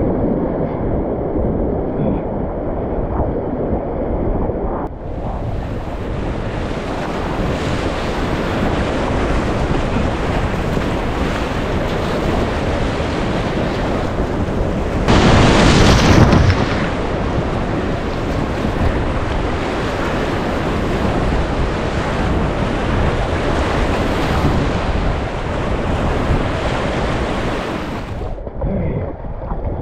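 Rushing whitewater of a river rapid around a kayak running it, heard up close on the boat's camera: muffled for the first few seconds, then suddenly full and hissing. About halfway through comes a loud splash as water breaks over the bow, and near the end the rush eases as the boat reaches calmer water.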